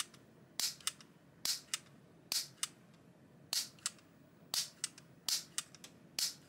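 Piezo igniter from a barbecue grill being fired over and over, about seven sharp snaps roughly a second apart. Each snap is followed a fraction of a second later by a lighter click.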